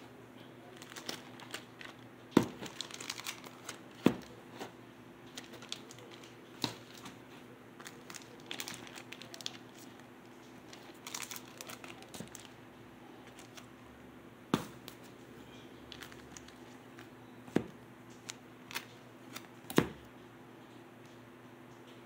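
Cellophane shrink-wrap on vinyl LP record jackets crinkling as the records are handled and turned over, with several sharp knocks as the jackets are set down. A faint steady hum runs underneath.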